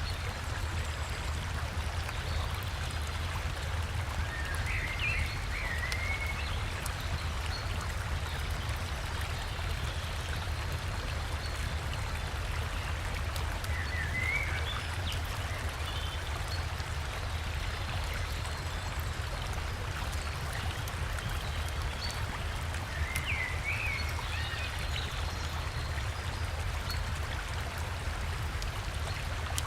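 Forest river and small waterfall rushing steadily, with a deep rumble beneath the splashing. A bird gives a short chirping phrase three times, about every nine seconds.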